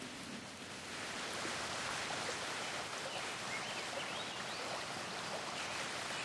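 Steady rushing of a stream's flowing water, a little louder from about a second in, with a few faint short high chirps.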